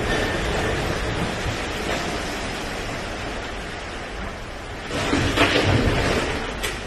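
Steady rushing noise of churning sea water and wind buffeting the phone's microphone, with a low rumble, easing off and then swelling louder about five seconds in.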